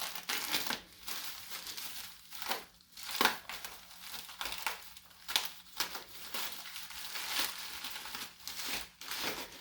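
Packaging being unwrapped by hand: an irregular run of rustles and crinkles with a few sharper tearing bursts.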